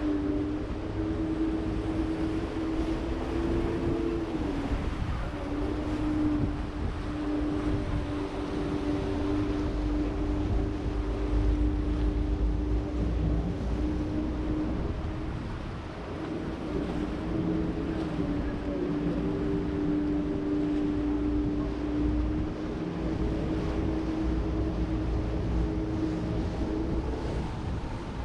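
Boat engine running steadily on the Grand Canal, with a low rumble under a steady hum. The engine's pitch shifts briefly about four seconds in and again around sixteen seconds. Wind rushes over the microphone.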